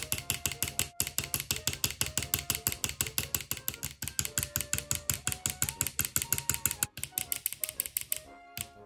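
Jackhammer sound for toy demolition hammers: rapid, even hammering clicks, about a dozen a second, with faint stepping tones underneath. The hammering breaks off near the end.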